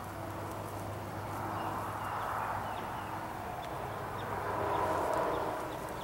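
Tomato plant leaves and stems rustling as a tomato is picked by hand, with a few faint short bird chirps and a steady low hum that stops about five seconds in.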